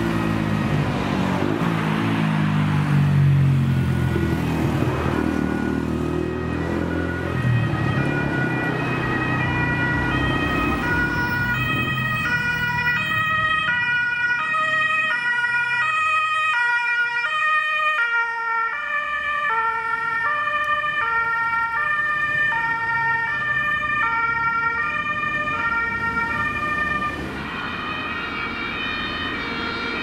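Road traffic and an engine running close by, then the alternating two-tone siren of a German Red Cross ambulance on an emergency run, loud for about fifteen seconds before falling off near the end.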